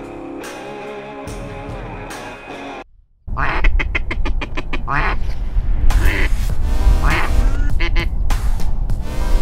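Background music for about three seconds, then, after a short break, loud duck quacking: a rapid run of quacks followed by single and double quacks, over a low rumble.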